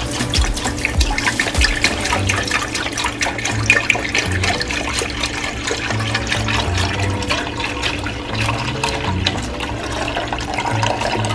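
Chicken stock poured from a carton into a stainless steel stockpot in a steady stream, splashing and gurgling into the stock already in the pot.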